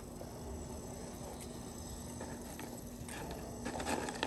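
Quiet pause between menu sounds: a faint steady hum under low background noise, with a few soft clicks near the end.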